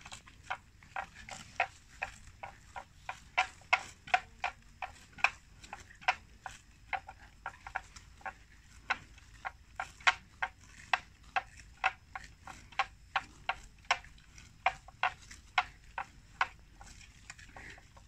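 Water buffalo grazing, tearing off mouthfuls of grass: short, sharp tearing clicks about three times a second, uneven in loudness.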